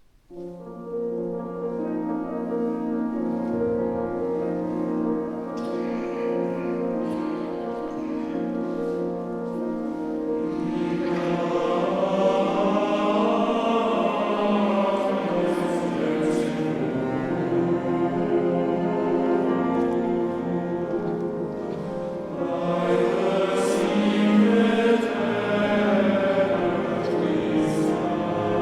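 Choir singing a slow, sustained piece that starts out of silence right at the beginning and grows fuller and louder about halfway through.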